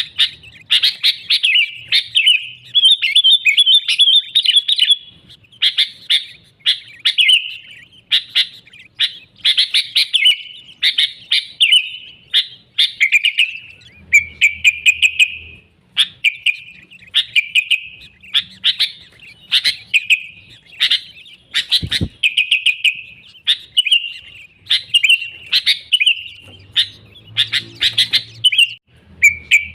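Sooty-headed bulbul singing loud, lively bubbling phrases, about one a second with short pauses. A single sharp click sounds about two-thirds of the way through.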